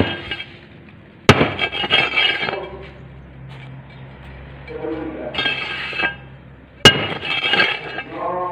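Steel tools striking and scraping a steel paving-block mould packed with damp sand-cement mix. There are three sharp metallic clanks, at the start, about a second in and near the end, each followed by a short gritty, ringing scrape of metal over the mould and mix.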